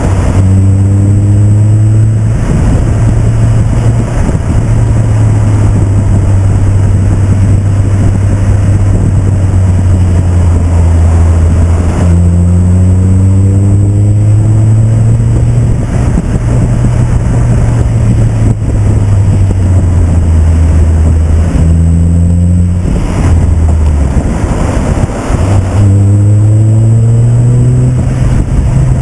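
Nissan 350Z's V6 engine running hard on a canyon run, with four climbs in pitch as it accelerates, near the start, about 12 s, 21 s and 26 s in, each falling back when the throttle is lifted or a gear is changed, over a steady low engine drone.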